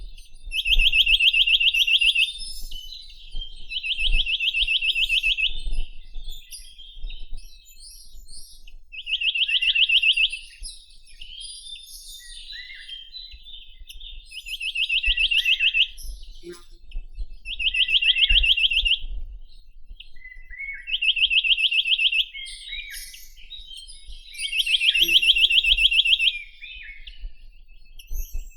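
Chinese nuthatch (Sitta villosa) singing: fast trills of evenly repeated notes, each about two seconds long, given seven times at intervals of a few seconds, with softer call notes in between.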